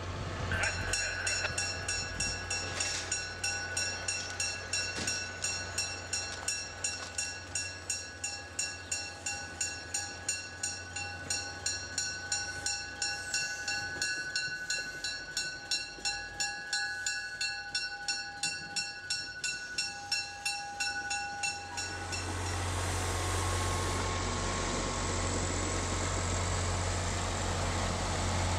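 A train's warning bell ringing steadily, about two strikes a second, as a commuter train moves off slowly. About three-quarters of the way in, the bell gives way to the steady running of the GP40MC diesel locomotive's engine as it passes close by.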